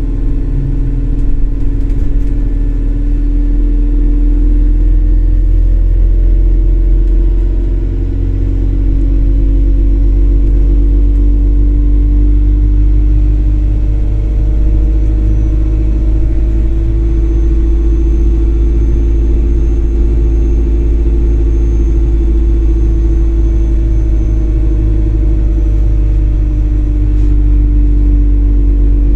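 Inside a moving MAZ-203 city bus: the engine and drivetrain running with a deep, steady rumble and a hum whose pitch slowly rises and falls as the bus speeds up and slows.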